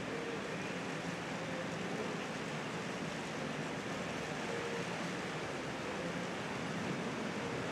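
Steady hiss of rain falling on open water, with a faint low hum of a boat's outboard motor idling underneath.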